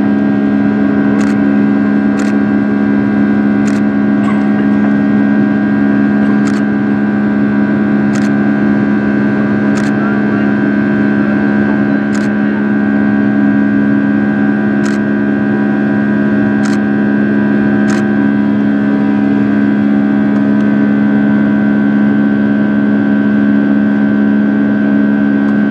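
Cabin noise of a Condor Boeing 757-300, its Rolls-Royce RB211 engines running steadily with a low hum and a higher whine over a rushing noise. Sharp ticks come every second or two and stop about two-thirds of the way through.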